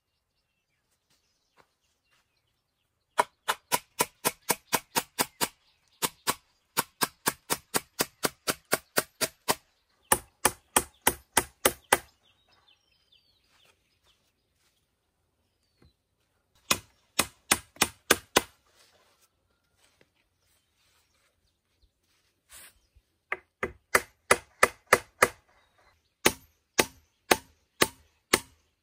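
Rapid chopping strokes of a blade into wood, about four a second. They come in bursts of six to eleven blows, with short pauses between bursts.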